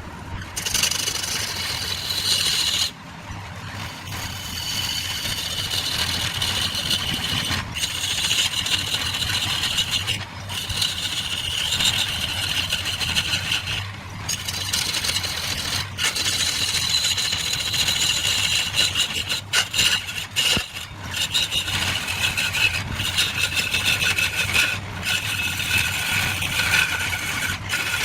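Wood lathe running with a turning tool scraping and cutting the spinning wood: a steady motor hum under a hissing scrape. The sound breaks off abruptly every couple of seconds.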